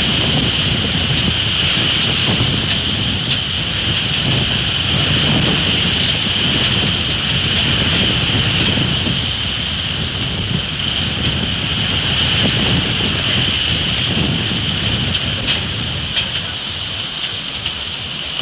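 Strong gusty wind buffeting an outdoor microphone: a deep rumble that swells and eases, over a steady high hiss.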